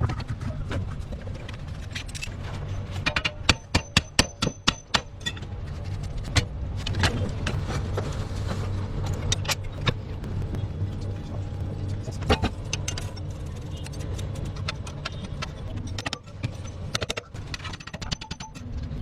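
Steady low hum of a car engine running, with sharp metallic clicks and knocks over it, including a quick run of about seven loud knocks a few seconds in.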